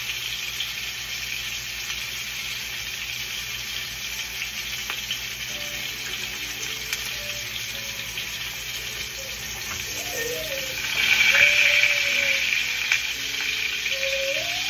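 Food sizzling in a frying pan on a stovetop: a steady hiss that swells louder for a second or two about eleven seconds in.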